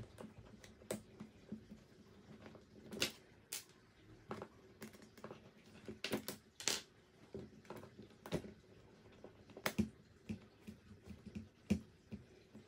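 Irregular light clicks and taps of a small hex screwdriver working the screws and suspension shaft out of a Tamiya TL01 RC car's plastic chassis, with small metal parts set down on a wooden table.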